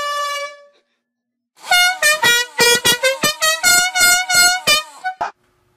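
Loud air horn: one blast that dies away, then after a short pause a rapid run of about a dozen short honks, roughly three a second, the pitch shifting a little from note to note.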